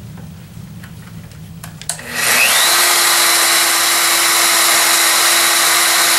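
Handheld rotary polisher with a 1500-grit diamond resin pad switched on about two seconds in. Its motor whine rises as it spins up, then it runs steadily as the pad polishes engineered marble dry at around 1800 RPM.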